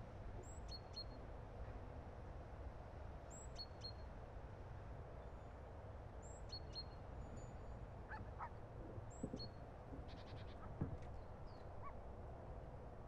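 Quiet room tone with a low hum, broken by short high chirps that come in pairs every couple of seconds, and a few soft knocks in the second half, the loudest about eleven seconds in.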